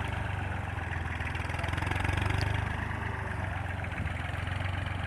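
Small diesel tractor engine running steadily with a low, even drone as it pulls a weighted implement across the field.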